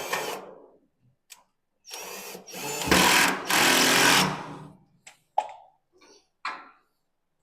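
Power drill with a screwdriver bit driving a screw into the locker for about two and a half seconds, louder in its second half. Short knocks and clicks of metal parts being handled come before and after it.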